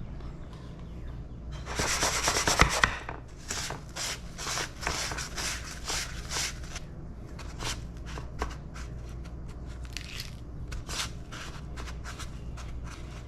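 Food-prep scraping and rubbing strokes. A dense, loud stretch of scraping comes about two seconds in, then irregular separate strokes thin out over the rest.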